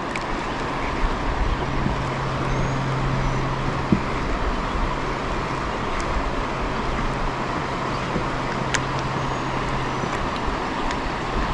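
Steady rushing noise of river water and wind on an action camera's microphone as a kayak drifts, with a faint low steady hum through most of it and a few faint clicks.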